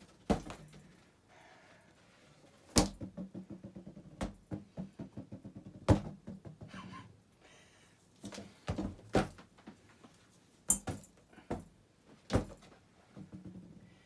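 Blades of a spinning Hunter Low Profile Plus ceiling fan striking a party balloon: sharp thumps at irregular intervals, with a run of quick slaps, about seven a second, from about three seconds in.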